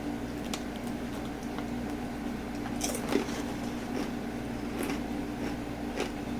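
A person chewing crispy fried kangkong (water spinach) chips close to the microphone: scattered crisp crunches, with a louder crunch about three seconds in, over a steady low hum.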